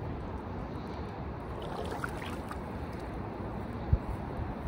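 Wind rumbling on the microphone, with a single close thump about four seconds in as the angler steps up beside the camera.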